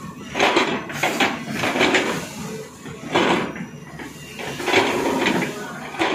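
Tata Hitachi excavator's steel bucket scraping and clanking against rock and stones while digging, in three rough bursts.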